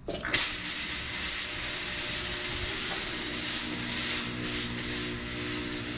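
Fog machine firing, a 1,000-watt Spirit Halloween unit: fog jets out with a steady hiss over a low hum. The hiss starts suddenly just after the start.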